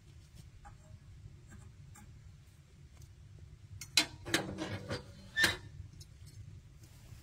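Scattered light clicks and knocks, with a few louder sharp knocks between about four and five and a half seconds in, over a low steady rumble.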